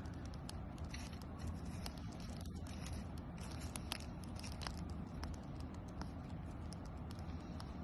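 Irregular sharp snaps and crackles of dry cedar kindling and small sticks as a campfire is started, over a steady low rumble.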